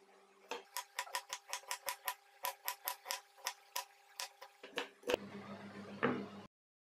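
Knife slicing onion on a wooden chopping board, the blade tapping the board in quick, even strokes, about five a second. About six seconds in, a single louder knock as a small ceramic bowl is set down on the board.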